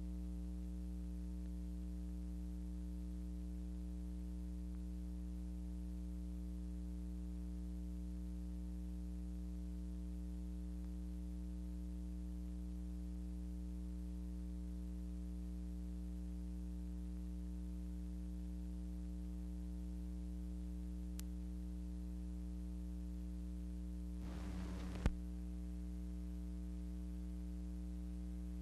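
Steady electrical mains hum with a stack of even tones over light hiss, the empty soundtrack of an archival film transfer. There is a faint click past the middle and a brief crackle ending in a pop near the end.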